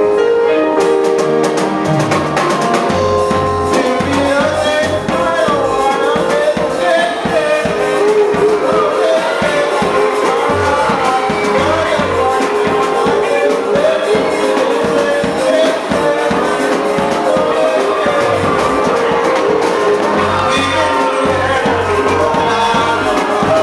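Live band music with a male voice singing into a microphone, over keyboards, electric guitar and hand drums. Held chords open it, and the singing and a steady bass beat come in about two seconds in.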